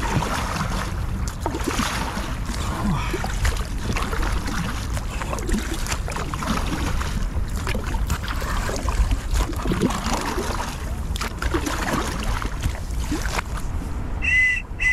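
Kayak paddle strokes splashing in sea water, with wind rumbling on the microphone. Near the end come two short, high-pitched blasts on a life-jacket whistle.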